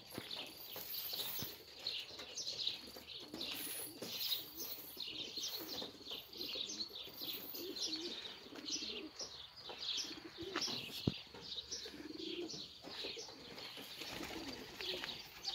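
Many small birds chirping busily, with pigeons cooing low in the second half. A single sharp click sounds a little past the middle.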